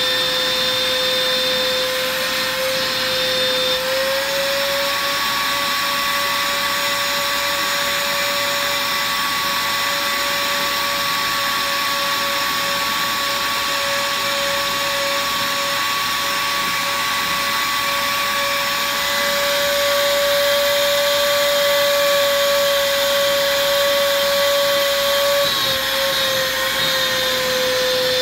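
Wet/dry shop vacuum running steadily with its bare hose worked over the rug, drawing up freshly applied dye. The motor's whine steps up slightly in pitch about four seconds in and falls back near the end.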